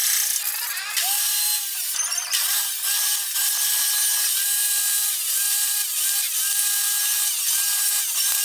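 Table saw running and cutting UV-sheet laminated boards: a high, steady blade whine over a hiss, broken into short repeated stretches.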